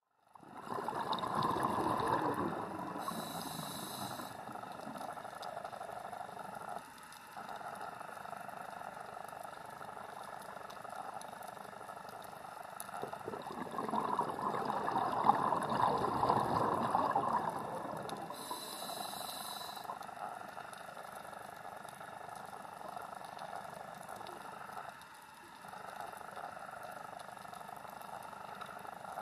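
Underwater sound of a scuba diver breathing on a regulator: a rush of exhaled bubbles followed by a short hiss of inhaled air, twice, over a steady watery wash.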